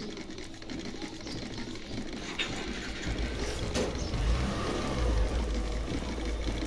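Small domestic sewing machine stitching through fabric: a steady, fast mechanical clatter of needle and shuttle, getting louder about three seconds in. The machine has just had its shuttle hook timing and feed dogs set, and it is feeding the cloth through properly.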